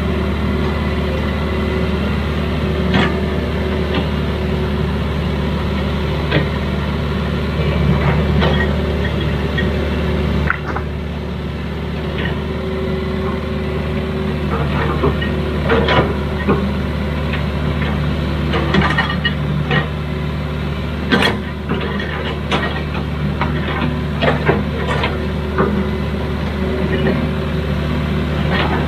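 Excavator's diesel engine running steadily under load, with scattered clanks and knocks of the bucket and soil. The level drops abruptly about ten seconds in.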